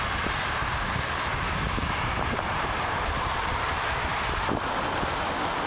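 Steady rushing wind noise on a helmet-mounted camera's microphone while cycling, with road traffic running alongside.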